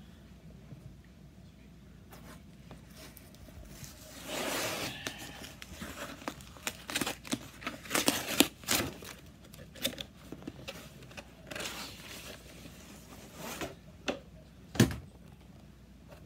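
A cardboard Priority Mail box being torn open by hand: a longer rip of the seal and tape a few seconds in, then scraping and crinkling of cardboard and packing as the contents come out, with a single loud thump near the end.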